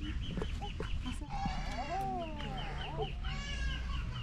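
A farm animal bleating in two wavering calls, one about a second and a half in and one near the end, over a bird's quick, high repeated chirping.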